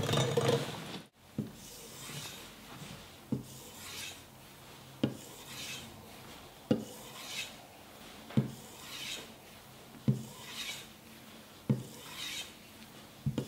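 Kitchen knife being stroked along a leather strop loaded with green polishing compound, the final honing stage of sharpening. Each pass is a soft rasp, with a light knock between passes about every second and a half to two seconds.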